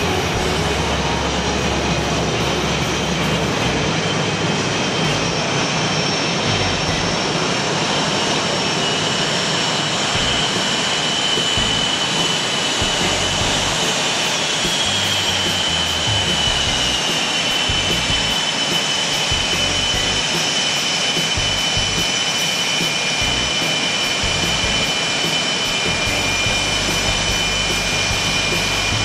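Twin jet engines of Blue Angels F/A-18 Hornets running at taxi power as the jets roll into parking: a steady high turbine whine over broad engine noise, one whine tone sliding a little lower about halfway through.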